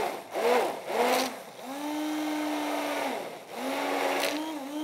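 Hand-held immersion blender running in a plastic quart container, puréeing a liquid herb marinade of cilantro, mint, lemon juice and olive oil. Two short pulses come first, then two longer runs of a couple of seconds each at a steady hum, with a brief stop between them.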